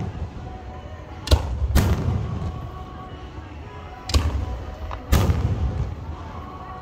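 Fireworks shells bursting overhead: four sharp bangs, two close together about a second in and two more around four to five seconds. Each bang is followed by a rumble that dies away.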